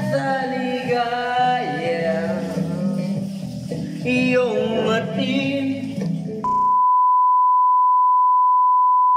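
A man singing into a handheld microphone; about six seconds in, the singing cuts off and a steady, high-pitched test-tone beep starts, the tone that goes with TV colour bars, louder than the singing.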